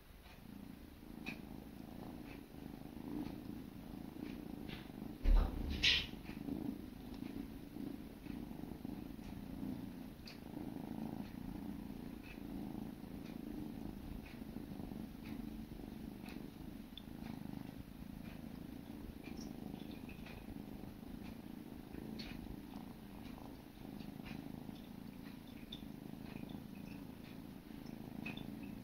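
Kittens purring steadily and closely, with faint small clicks from licking as they groom each other. A single loud thump about five seconds in.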